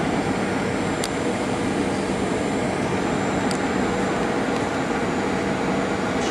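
Steady cabin noise of a Boeing 737 airliner, jet engine and airflow rushing evenly with a faint steady hum, and two faint clicks about a second and three and a half seconds in.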